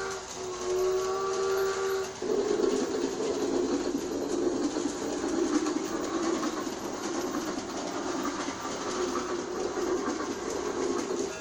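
New Bright Railking G-scale toy steam train running, its whistle sound effect playing for about the first two seconds, then a steady noisy running sound.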